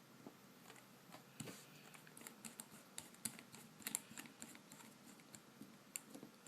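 Faint, irregular light clicks and taps of a small screwdriver working a tiny screw into an iPhone 3G/3GS.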